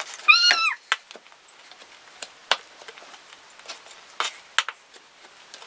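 Chef's knife chopping dried strawberries on a plastic cutting board: irregular sharp knocks of the blade against the board. Near the start there is a short high-pitched squeal that rises and falls, louder than the chopping.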